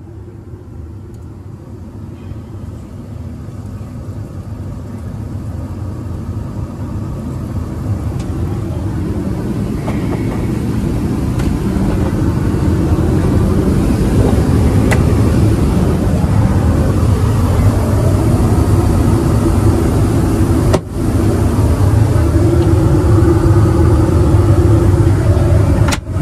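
Steady low rumble of an Airbus A321neo's cabin noise heard inside its lavatory, growing louder over the first dozen seconds and then holding steady.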